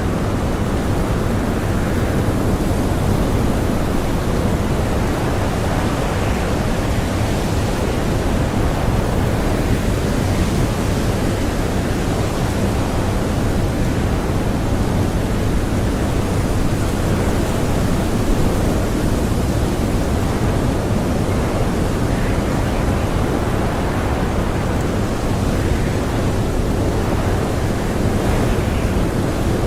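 Strong blizzard wind howling, a dense steady rush with most of its weight in the low end and no let-up.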